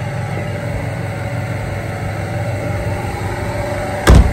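An engine running steadily with a low hum. Near the end comes one loud, sharp knock.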